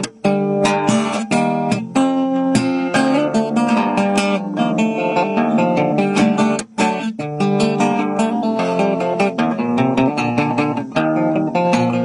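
Solo acoustic guitar played fingerstyle, a plucked melody over bass notes, with one short break a little past halfway.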